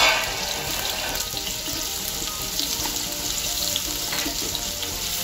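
Finely chopped onions frying in hot oil in a pan, a steady sizzle that is loudest in a short surge at the very start.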